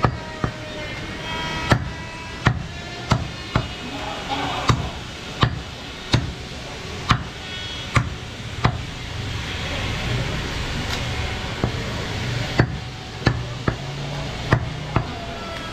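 Butcher's cleaver chopping through a goat carcass on a wooden chopping block: a run of sharp, separate chops about one a second, pausing for a few seconds in the middle before the chopping resumes.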